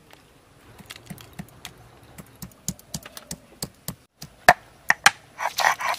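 Irregular small taps and crisp cracks, a few a second, with a quick run of louder cracking near the end: a stone pestle crushing ginger and garlic on a flat grinding stone while crab shells are pulled off by hand.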